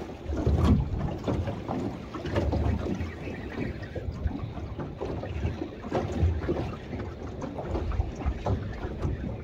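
Wind buffeting the microphone over choppy sea water around a small boat, an uneven gusting rumble with no engine running.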